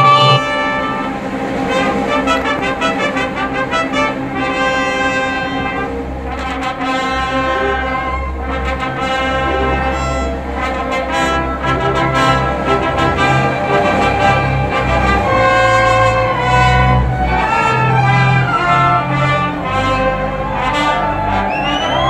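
Two trumpets playing a duet, with the orchestra accompanying.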